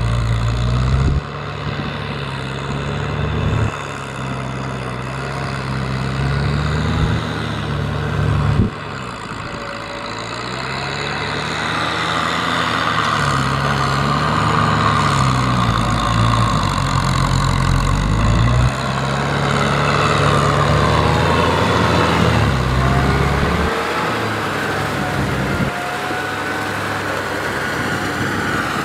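Kubota M6040SU tractor's diesel engine running steadily under load as it works wet paddy mud. Its pitch and level jump abruptly several times.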